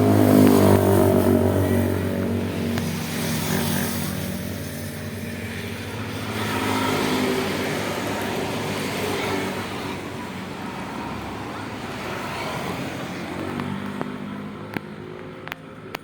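A road vehicle passing close by with its engine running, its note falling in pitch as it goes past. A second vehicle passes more quietly about six seconds later, and a few sharp clicks come near the end.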